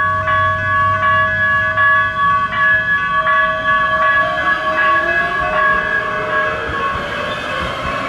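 Metro light rail train passing close by. Its sound is dominated by several loud, steady high tones that break off briefly now and then, with some of the tones sliding down in pitch around the middle.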